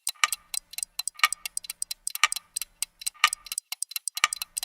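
Clock-like ticking: a fast, even run of sharp ticks, several a second, with a louder tick about once a second.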